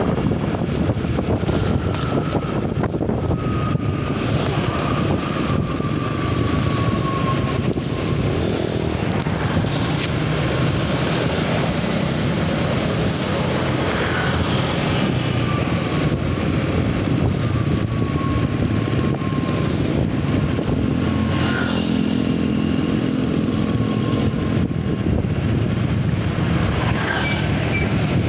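Motorcycle being ridden along a road: the engine and road noise run steadily under wind rushing over the microphone, with a few faint sliding whines from other traffic.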